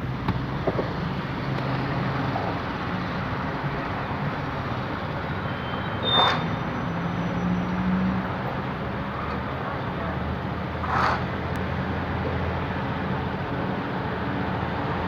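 Truck engine running steadily, with two short noisy bursts about six and eleven seconds in.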